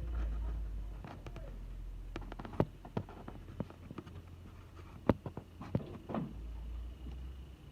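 A run of irregular sharp knocks and clicks, the two loudest about two and a half and five seconds in, over a low rumble that fades after the first second.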